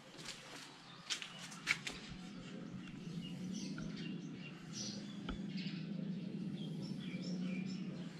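Small birds chirping and tweeting, with a few clicks near the start and a low steady hum underneath from about three seconds in.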